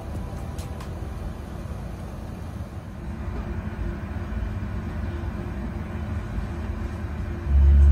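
Low steady rumble of an Airbus A380 jet airliner. Near the end it abruptly becomes much louder.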